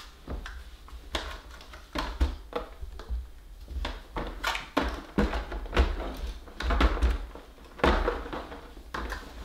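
Irregular knocks, thunks and rustles of plastic toy packaging being moved and handled on a table, with dull bumps against the tabletop.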